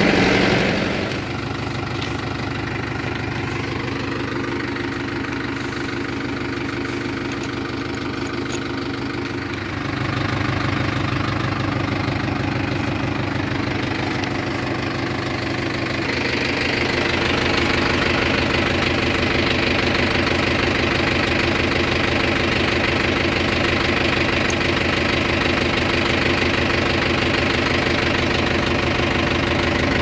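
Mahindra Yuvo 575 tractor's four-cylinder diesel engine running steadily at low revs. Its note gets fuller about ten seconds in and louder from about sixteen seconds in.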